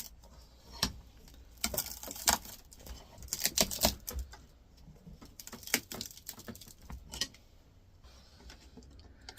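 Irregular clicks, taps and scrapes of metal tools prying the copper windings out of a cut electric motor stator held in a vise, coming in short bunches.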